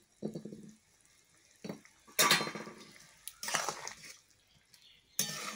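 Metal cookware and utensils clattering and scraping in a few short, rough bouts, the loudest about two seconds in.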